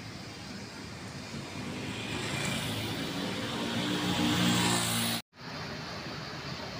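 A motorcycle approaching along the road and passing close, its engine and tyre noise growing louder over a few seconds. The sound cuts off suddenly just after five seconds, then steady street traffic noise follows.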